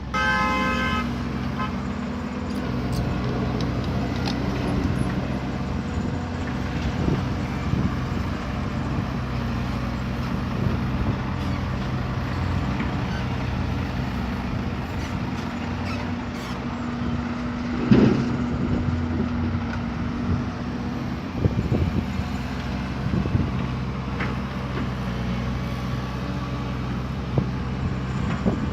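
Heavy diesel earthmoving machinery (excavator and dump truck) running steadily. A short horn toot sounds at the start, and a sharp knock about two-thirds of the way in, with a few smaller clanks after it.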